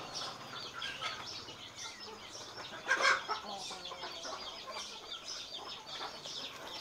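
Background bird calls: clucking like chickens and many short chirps, with one louder call about three seconds in.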